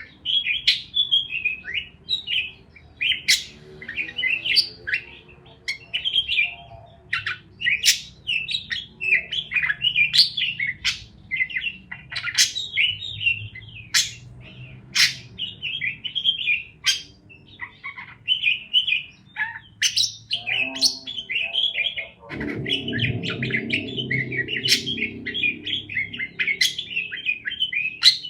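Parakeets chirping and chattering without a break, quick high chirps overlapping with short sharp squawks.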